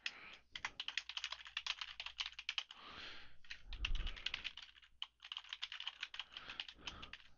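Typing on a computer keyboard: quick runs of key clicks, broken by a couple of brief pauses.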